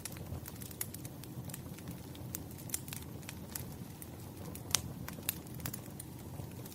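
Burning firewood crackling: irregular sharp pops over a low steady rumble, with one louder pop a little before five seconds in.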